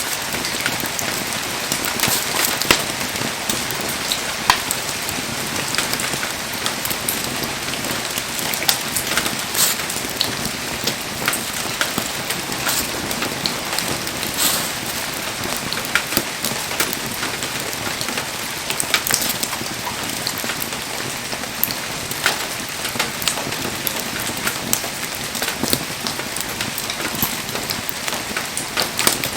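Firewood burning in an open bonfire, a steady hiss dotted with frequent sharp crackles and pops.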